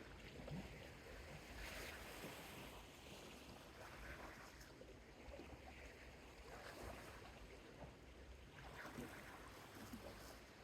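Faint, gentle ocean waves washing onto a small beach, swelling softly every two to three seconds.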